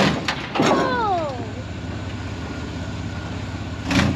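Vehicle engine idling with a steady low pulse, preceded by a couple of clicks and a high squeal that glides down in pitch about a second in; a short louder burst comes near the end.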